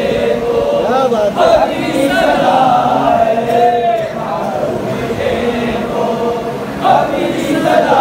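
A group of men chanting devotional verses together in unison, holding long, wavering notes.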